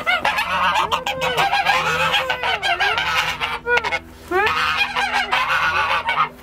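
Several domestic geese honking and calling over one another, excited at being given feed. The calls overlap almost without a break, with a brief lull about four seconds in.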